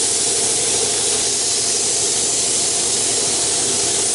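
Compressed-air paint spray gun spraying clear coat, a steady, even hiss with no breaks.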